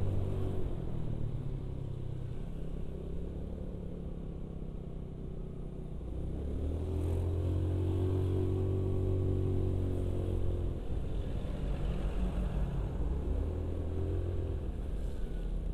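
Honda Beat carburetted scooter's small single-cylinder engine running under way, heard from the rider's seat with wind and tyre noise on a wet road. It climbs in pitch about six seconds in as the throttle opens, holds, eases off around ten seconds, and picks up again near the end.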